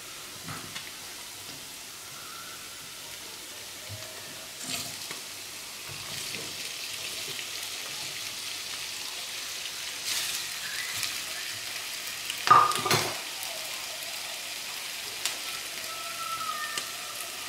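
Raw potato sticks going into hot oil in a frying pan on full heat, sizzling, the sizzle growing louder as more go in, with chanterelles frying in the pan beside. A few knocks of potatoes and plate against the pan, the loudest a clatter about twelve and a half seconds in.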